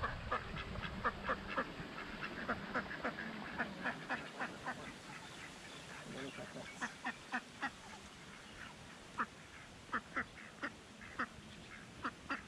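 A flock of mallards and white domestic ducks quacking: many short quacks overlapping at first, thinning to scattered single quacks in the second half.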